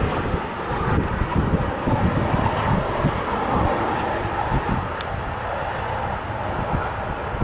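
Twin turbofan engines of an Embraer E195 jetliner on final approach and landing flare, a steady rushing jet noise over a low rumble.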